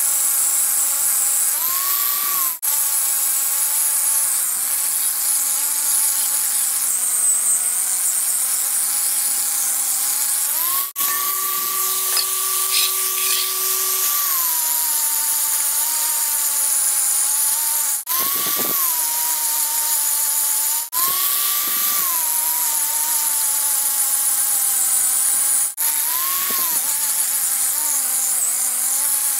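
An electric power tool with an abrasive working the rusted shoe surface of a brake drum: a steady motor whine under a gritty high hiss. The motor speeds up whenever the load comes off, most clearly for about three seconds near the middle. The sound breaks off abruptly several times.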